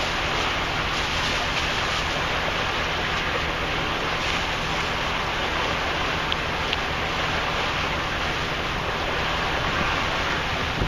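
Steady rushing noise of wind and water on a motor boat under way, with a low, even engine hum underneath.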